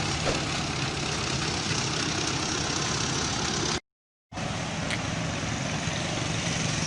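Engine running steadily with a low hum amid street noise. The sound cuts out completely for about half a second a little past halfway, then resumes.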